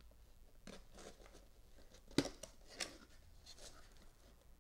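Cardboard box flaps being opened by hand: faint scraping and rustling of cardboard, with one sharp snap about halfway through.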